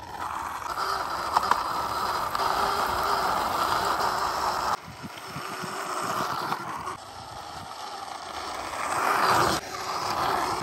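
Plastic wheels of a toy dump truck rolling and grinding along a rough concrete wall top as it is pushed by hand, a steady rattling rumble. The sound breaks off and resumes abruptly about five and nine and a half seconds in.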